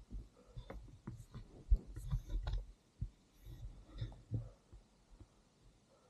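Footsteps in snow and trekking-pole taps: an irregular series of muffled low thumps, with a few sharper clicks in the middle.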